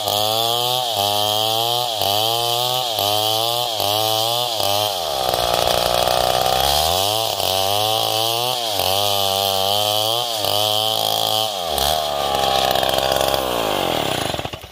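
Stihl MS070 two-stroke chainsaw cutting lengthwise through a coconut palm log. Its engine pitch rises and falls about twice a second, with a few longer, slower swells, and drops away near the end as the saw is lifted out of the cut.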